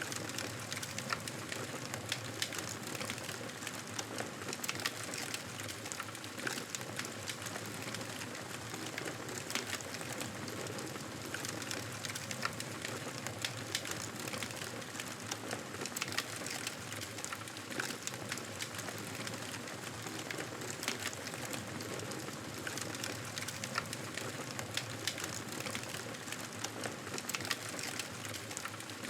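Cozy-cabin ambience: a steady hiss thick with many small, irregular crackles and ticks, with no change throughout.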